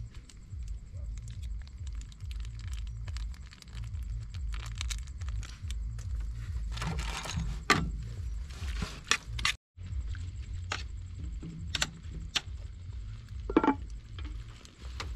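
Light clicks and clatter of chopsticks against a frying pan as raw pork is tossed with seasoning, over a steady low rumble.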